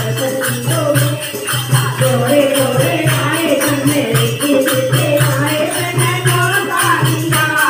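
Group of women singing a devotional kirtan bhajan together, accompanied by jingling hand percussion that keeps a steady beat.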